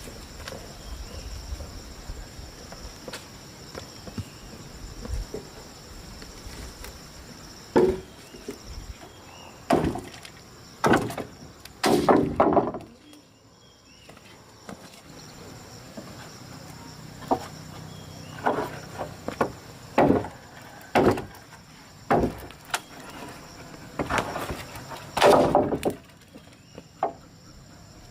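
Dry firewood being broken up: about a dozen irregular sharp cracks and knocks of wood, some in quick clusters. A steady high-pitched insect buzz runs underneath.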